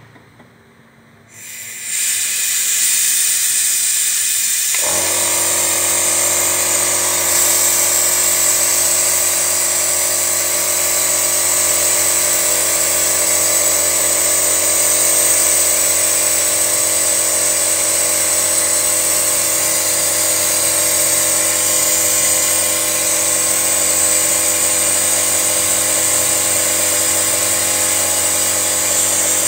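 Engine carbon-cleaning equipment running: a loud steady hiss of air starts a couple of seconds in, and the steady hum of an electric motor joins it about five seconds in.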